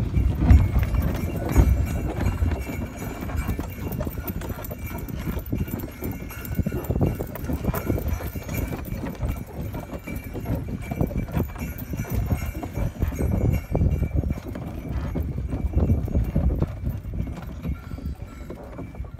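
Hooves of a pair of horses pulling a sleigh through snow: a continuous, uneven run of soft thuds.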